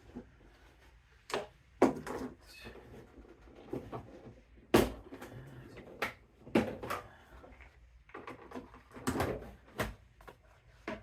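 Plastic body panels and air box of an ATV being pried and worked loose by hand: a string of irregular sharp plastic knocks and clatters with short rattling stretches between them.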